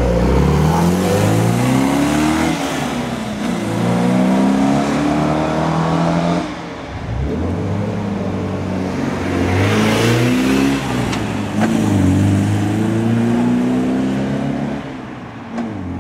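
Car engines accelerating hard through the gears on a race circuit, the pitch climbing and then dropping back at each upshift, several times over; the sound eases off near the end.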